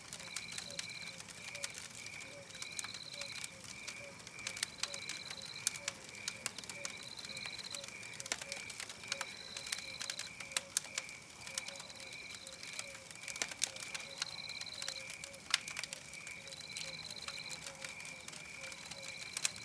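Campfire crackling and snapping with irregular pops, layered over a night-forest chorus of insect-like chirping: a steady high chirp about three times a second and a higher trill that comes back about every two seconds.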